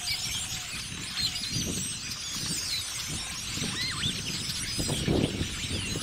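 A large flock of blackbirds calling together, a dense chorus of overlapping high chirps and whistles, with low gusty rumbles underneath that are strongest about five seconds in.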